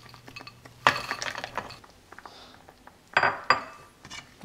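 Bowl and spatula clinking against the rim of a cooking pan as green peas are tipped into a thick curry base: one sharp clink with a short ring about a second in, then two more close together near three seconds, with faint small clicks between.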